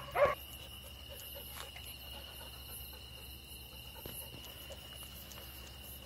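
Crickets chirring steadily as a faint, high, even trill, with a couple of faint ticks.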